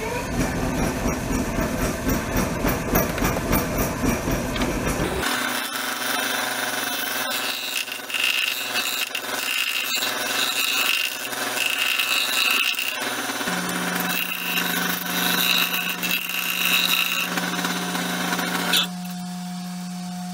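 Wood lathe running while a turning tool cuts the inside of a cedar-and-epoxy-resin bowl. The cut has a rough, rapid knocking texture for the first five seconds, then goes smoother over the lathe motor's steady hum. The cutting stops about a second and a half before the end.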